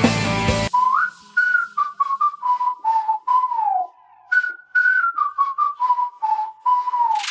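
A whistled tune, one clear line of notes sliding between pitches, with the same phrase starting over partway through and short sharp clicks between the notes. Music is heard before it and cuts off in the first second.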